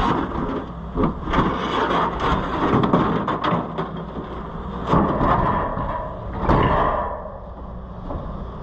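Metal scraping, clicking and clanking from hand work on a combine's gathering chain and the sheet-metal tin of the corn head, in irregular bursts.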